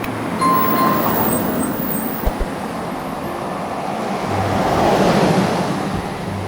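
Road traffic ambience: a steady wash of tyre and engine noise, with one vehicle passing close and swelling loudest about five seconds in. A short high tone sounds about half a second in.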